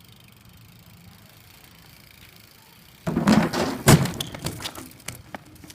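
Quiet room tone, then about three seconds in a loud clattering rustle ending in one sharp thump, followed by a few light knocks.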